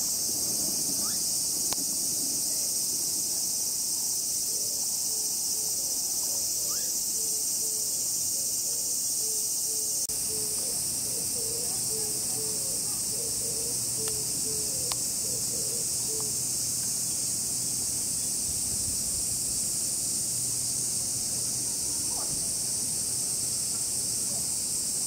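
Steady, high-pitched drone of a chorus of summer cicadas.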